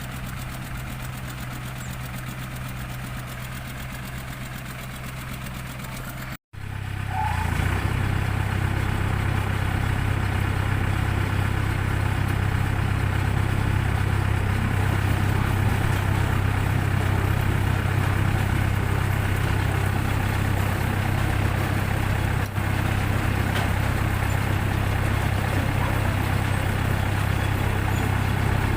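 An engine running steadily. It drops out for a moment about six seconds in, then runs on louder and steady.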